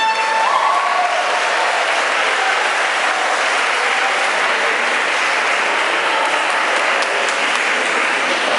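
A congregation applauding steadily in a large church, as the last held trumpet note of the mariachi music dies away about a second in.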